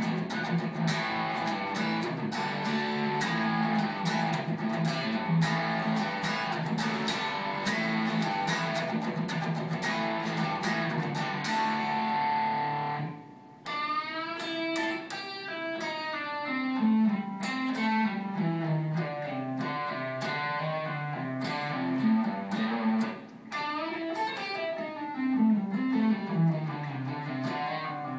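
Stratocaster-style electric guitar playing a rock riff: strummed chords for about the first half, a brief break, then single-note runs built on a flattened fifth that step down and back up in pitch.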